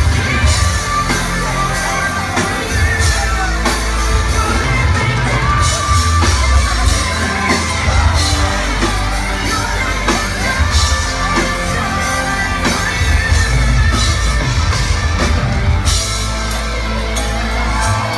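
Live rock/hip-hop song played loud through a concert PA, with heavy bass and voices singing and yelling over it.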